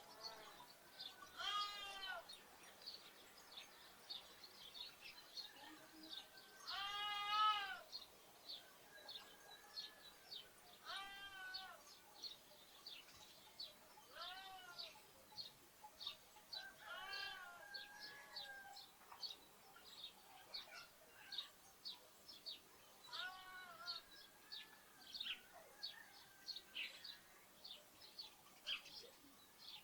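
Lambs bleating about six times, each a short wavering call, the loudest about seven seconds in, while sparrows chirp almost without pause.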